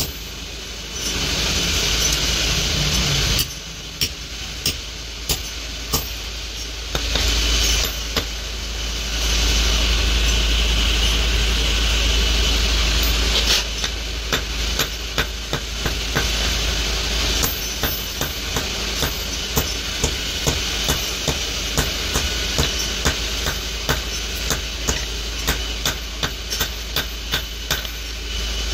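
Hand hammer striking red-hot steel on a small anvil as a pliers blank is forged: a few separate blows early, then steady blows about two a second through the second half. A steady rushing hiss runs under the first half.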